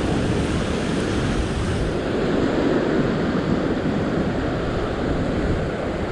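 Heavy surf breaking and washing over a rock ledge: a steady, churning wash.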